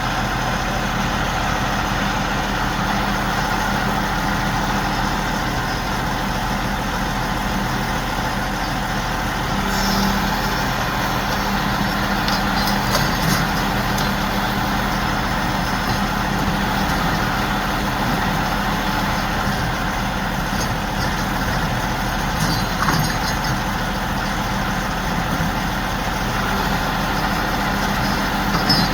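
A big crane's engine running steadily, with a few faint clicks.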